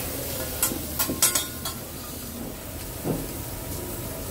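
Food sizzling on a hibachi griddle with a steady hiss, and a quick cluster of sharp metal clicks about a second in.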